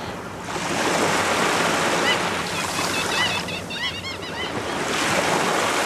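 Surf washing onto a shore, a steady rushing that swells and eases, with a run of short high chirps through the middle.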